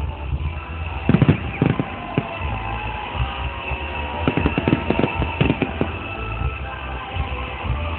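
Fireworks bursting in irregular clusters of sharp bangs, a first volley about a second in and a denser run from about four to six seconds in. Music plays steadily underneath.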